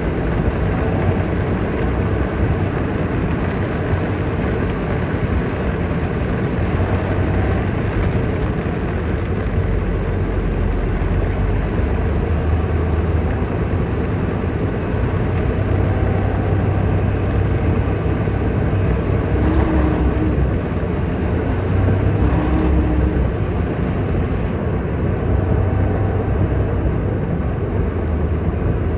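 Heavy rain falling: a loud, steady wash of noise with a deep rumble underneath.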